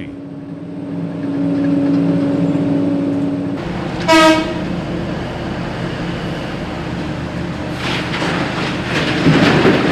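Heavy mining machinery running: a steady engine drone, then a short horn blast about four seconds in, followed by a rumbling, clattering noise that grows louder near the end.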